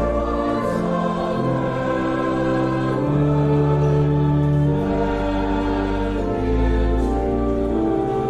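Slow church music of held chords over deep sustained bass notes, the chords changing every second or two.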